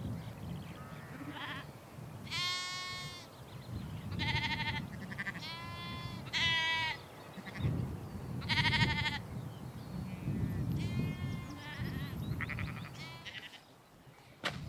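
Sheep bleating, about eight separate wavering calls from more than one animal, over a low rumble of wind.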